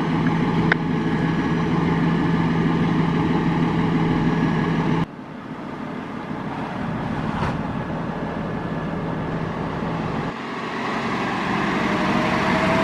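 A motor vehicle's engine running steadily with a low hum. The sound changes abruptly about five seconds in and again about ten seconds in.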